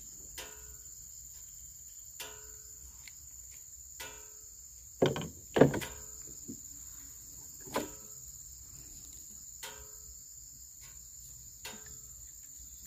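A steady, high-pitched chorus of insects, with short sharp knocks about every two seconds; the two loudest come close together near the middle.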